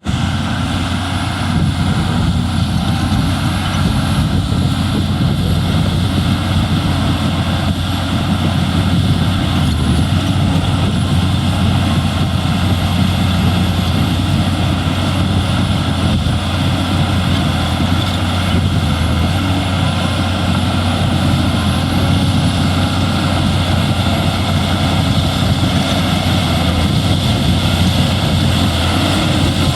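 Shantui bulldozer's diesel engine running steadily: a loud, continuous low drone that holds an even pitch and level throughout.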